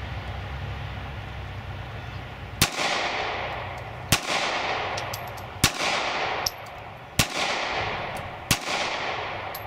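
SIG P238 .380 ACP pocket pistol fired five times at an even pace, about a shot every second and a half, each sharp crack followed by an echo that dies away.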